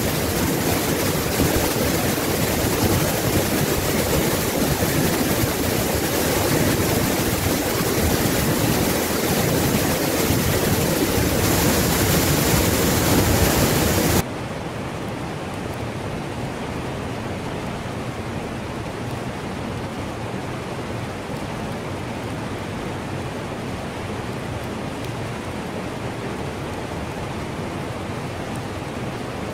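Waterfall pouring into a cave pool: a steady, loud rush of falling water. About halfway through it drops suddenly to a softer, duller rush with less hiss.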